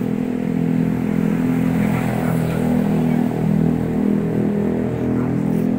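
A steady motor hum at one unchanging pitch, like an idling engine.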